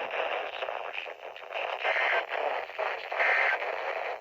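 Weather radio static hissing from weak reception, broken twice by short buzzing bursts of EAS data tones, about a second and a quarter apart: the end-of-message bursts that close the alert.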